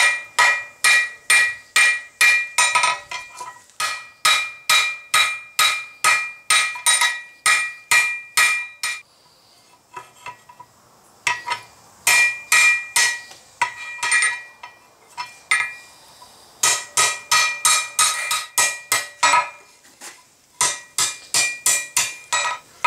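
Hand hammer striking a red-hot flat-bar tong blank on an anvil, about three blows a second in runs, each blow ringing the anvil with a clear high tone. The hammering stops for about two seconds near the middle and pauses briefly twice more.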